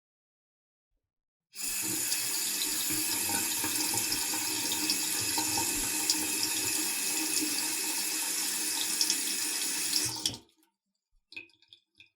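Sink faucet running water into a sink, a steady even stream that starts suddenly about a second and a half in and stops sharply about ten seconds in. A few faint ticks follow near the end.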